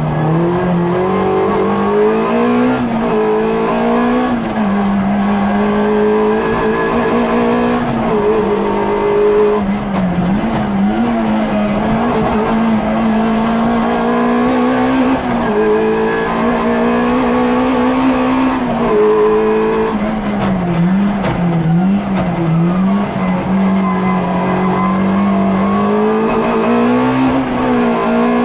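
Peugeot 106 rally car's four-cylinder engine heard from inside the cabin, driven hard through the gears: the pitch climbs and then falls sharply at each upshift, several times over. Around two-thirds of the way through, the revs waver up and down as the car brakes and changes down, then climb again.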